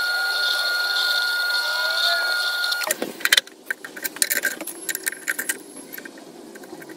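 Tormek wet grinder running with a bowl gouge held in its jig against the grindstone, a steady whine that stops sharply about three seconds in. Then metal clicks and clatter as the jig and support bar are handled and adjusted.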